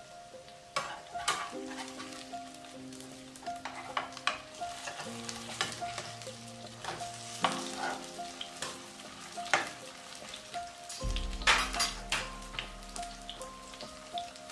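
Sausage-meat patties frying in hot oil in a frying pan: a steady sizzle with sharp crackles and pops of spattering fat.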